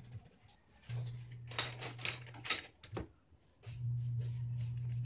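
Tape measure and pencil handled on a sheet of marine plywood: a few short scrapes and ticks, mostly between one and three seconds in, over a low hum that cuts out near the middle and returns.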